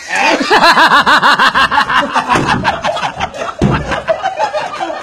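Loud, rapid laughter, a quick run of ha-ha-ha bursts that starts suddenly.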